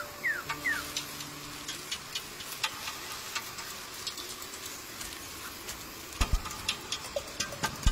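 Night-forest sound effects: a few quick falling chirps in the first second, then scattered irregular clicks and ticks, with low thuds from about six seconds in.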